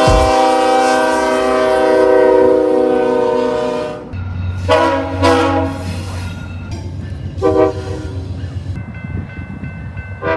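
Train horn sounding one long blast, then several short blasts. A low steady rumble begins about four seconds in.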